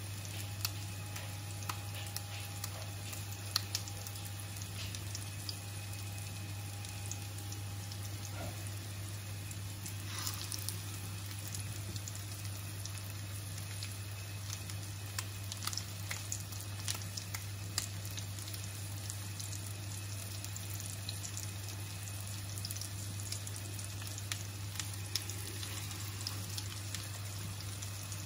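Minced-meat cutlets frying in oil in a frying pan over medium heat: a steady sizzle with many small pops and crackles, over a steady low hum.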